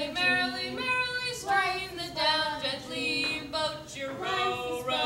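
A single voice singing unaccompanied, a slow melody of held notes broken by short breaths.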